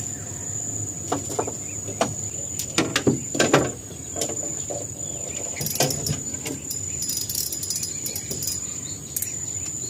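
A steady high-pitched insect trill, with scattered clicks and knocks from fishing rods and gear handled in a small boat.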